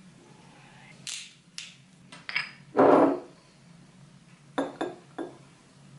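Glass bottles clinking and knocking together as they are handled: a few light clinks, a louder knock about three seconds in, then three quick ringing glass clinks near the end.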